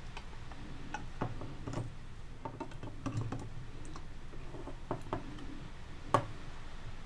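Irregular light clicks and taps of steel needle-nose pliers and a small metal part knocking against a tin can of melted wax, with one sharper knock about six seconds in.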